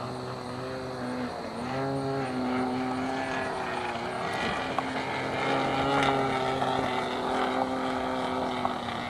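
OS 160 two-stroke engine of a radio-controlled QuiQue Yak model plane running in flight. Its steady drone dips in pitch and recovers about a second and a half in, and again near four seconds, as the throttle and the distance change.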